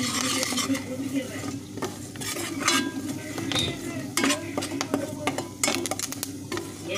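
A metal spoon stirring a thick spice masala in sesame oil in a steel pot, with scattered clinks and scrapes of the spoon against the pot and the paste sizzling on the heat.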